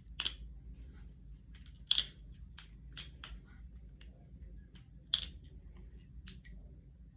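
Bear & Son live-blade balisong being flipped by hand: irregular sharp metallic clicks and clacks of the handles and latch, about a dozen spread over the seconds, the loudest near the start, about two seconds in and about five seconds in.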